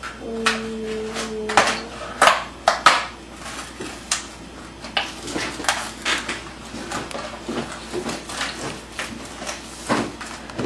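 Small hard objects knocking and clattering on a kitchen table as egg-coloring kit pieces are handled, a dozen or so separate knocks, the loudest just after two seconds in. A short steady hummed note sounds in the first two seconds.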